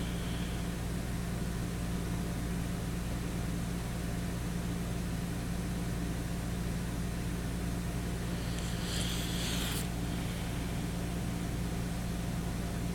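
Steady low electrical hum and hiss, with a brief rustle about nine seconds in.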